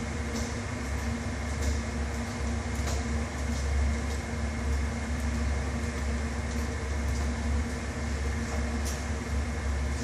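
Steady low machinery hum, the running of an aquarium's pumps and air handling, with a few faint clicks.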